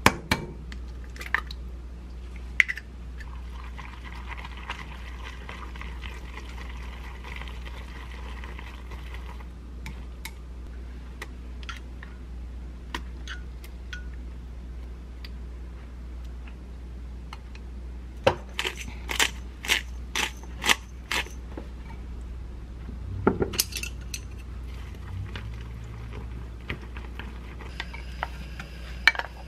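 Pancake batter being made in a glass mixing bowl: a few sharp taps as an egg is cracked, a stretch of soft stirring, then a quick run of sharp clinks of a utensil against the glass as the batter is mixed. A low steady hum runs underneath.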